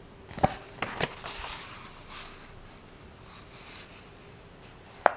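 Pages of a paperback book being turned and smoothed flat by hand: a few light taps in the first second, paper rustling and sliding in the middle, and one sharper tap near the end.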